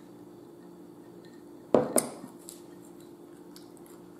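A drinking glass set down on a table with two knocks close together, then a few light clicks of a fork on a plate, over a faint steady hum.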